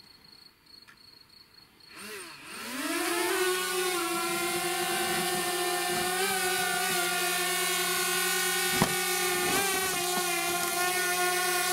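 Small quadcopter drone's motors spin up about two seconds in with a rising whine as it lifts off from a hand, then settle into a steady high-pitched propeller buzz as it hovers and climbs.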